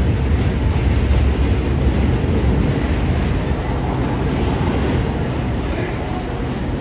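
R32 subway train running on elevated track as it moves away, a low rumble slowly easing off. Thin, high wheel squeals from the curving track come in about three seconds in and again about five seconds in.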